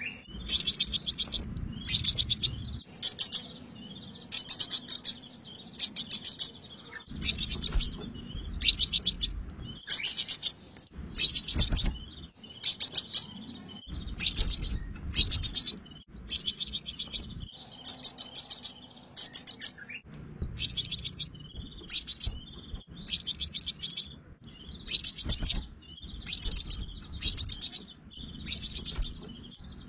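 Sunbird song: short, high, very rapid trilled phrases, one after another about once a second with brief gaps, typical of a lure call for trapping.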